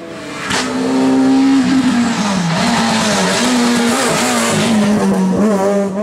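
Rally car at full effort through a tight bend: the engine note drops and climbs repeatedly with lifts of the throttle and gear changes, over a loud hiss of tyre noise. A sharp crack comes about half a second in.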